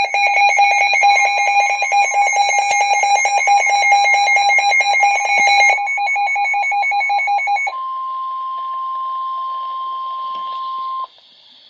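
Weather alert radio sounding its emergency alert for a severe thunderstorm warning: a rapid pulsing electronic alarm for about six seconds, then a steady single-pitch warning alarm tone, the NOAA Weather Radio 1050 Hz tone, which cuts off about eleven seconds in.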